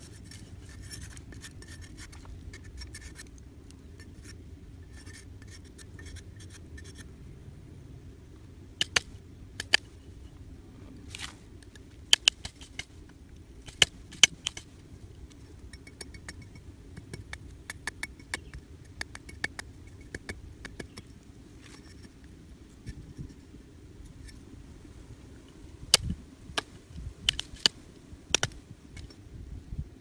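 A metal cleaver shaving and trimming a thin wooden stick: repeated short scraping strokes of the blade along the wood, with sharp clicks as it bites. The loudest clicks come in two clusters, one around the middle and one near the end.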